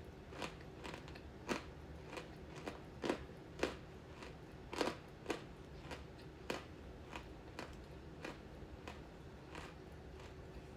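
A person chewing crunchy candy close to the microphone: irregular crisp crunches, roughly one or two a second.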